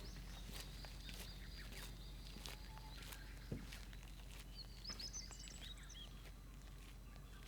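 Faint outdoor ambience with small birds giving a few short chirps a little past the middle, over scattered sharp clicks and one soft thump.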